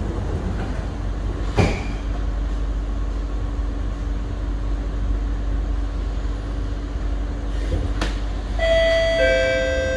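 SMRT C151B train running, heard from inside the carriage: a steady rumble with a faint constant hum, and a sharp thump about one and a half seconds in. Near the end the train's STARiS chime sounds, two ringing tones one after the other.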